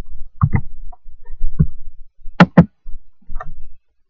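A series of short clicks and knocks, several in quick pairs, the sharpest pair about two and a half seconds in.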